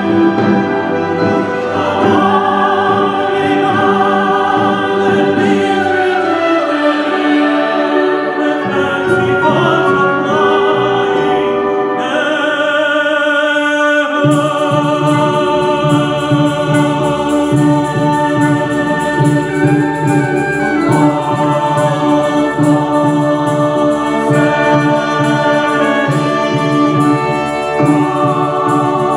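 Choir singing with a symphony orchestra in a song, with held notes. About halfway through the accompaniment grows fuller, with a pulsing low part underneath.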